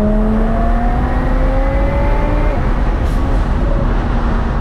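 A sports car's engine pulling under steady acceleration, its pitch rising slowly, then easing off about halfway through and settling to a lower steady drone over a deep rumble.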